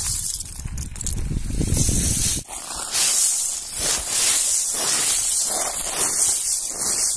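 Gritty, hissing rustle of small mussel shells being shovelled up and poured into a woven plastic sack. A low rumble underlies the first two and a half seconds and stops suddenly.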